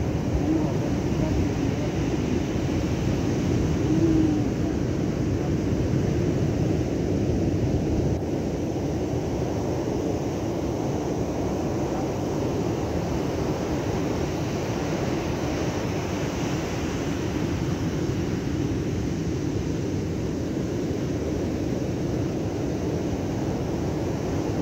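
Wind and breaking ocean surf, a steady rumble, a little louder for about the first eight seconds.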